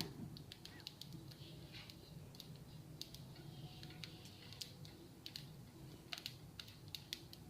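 Faint, irregular light clicks and scrapes of fennel seeds being stirred in a dry pan, roasting on low heat toward golden brown.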